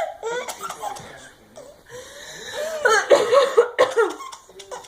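A baby laughing in bursts of giggles at a woman's coughs, with a longer, louder run of laughter about three seconds in.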